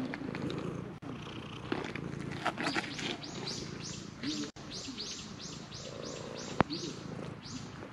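Domestic cat purring steadily while being petted. From about halfway, a hand pats its fur in a quick rhythmic rustle, about three pats a second. There is one sharp click near the end.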